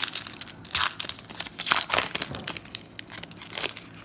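Wrapper of a 2020 Topps Heritage baseball card pack being torn open and crinkled by hand, in irregular crackles and rips, the loudest about a second in, near two seconds and near the end.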